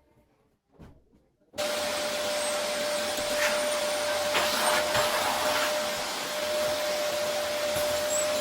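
Vacuum cleaner switched on about a second and a half in, then running steadily, a constant whine over its noise of rushing air.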